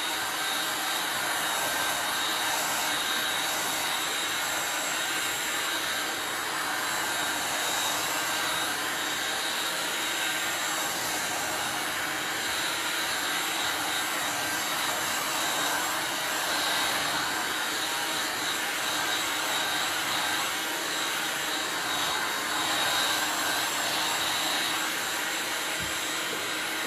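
Handheld electric heat gun (hot air gun) running steadily, blowing hot air to dry modeling paste: a constant blowing hiss with a faint high whine.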